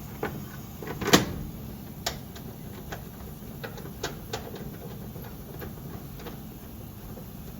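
Cover of a whole-home humidifier being fitted back on: a run of clicks and knocks, with one sharp snap about a second in and smaller clacks after, over a steady low rumble.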